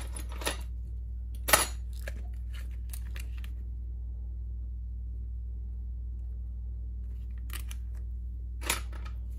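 Small sharp clicks and taps of metal tweezers handling a sheet of warranty stickers, the sharpest about a second and a half in, a quick cluster after it and two more near the end. A steady low hum runs underneath.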